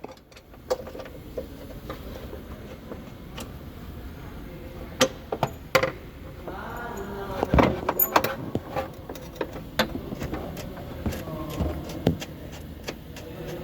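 Workshop sounds of car repair: scattered sharp metallic clinks and knocks of tools and parts, with a brief pitched whine or squeal about seven seconds in.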